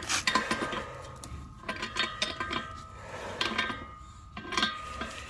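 A wrench clinking and knocking against metal gas fittings while a connection is tightened: irregular sharp metallic clicks with brief ringing.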